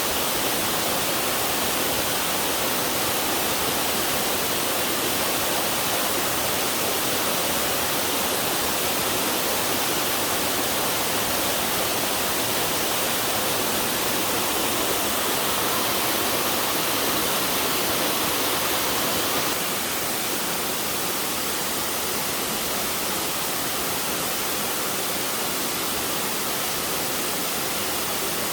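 Waterfall pouring steadily, a dense, even rush of falling water. About two-thirds of the way through the sound becomes a little quieter.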